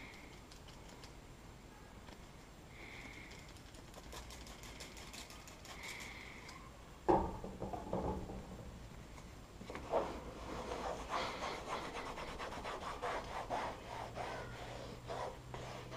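Microfiber towel rubbing over the old plastic bed rail cap of a Ford F-150 in quick back-and-forth strokes, starting about two-thirds of the way in. A single sharp knock a little before halfway is the loudest sound.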